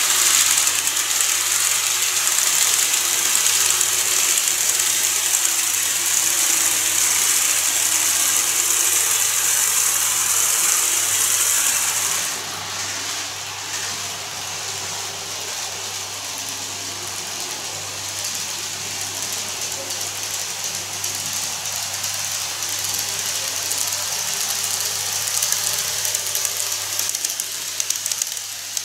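N-gauge model electric trains running on the layout's track: a steady high whine of the motors with wheel rumble. It drops suddenly about twelve seconds in, then builds again near the end as another train approaches.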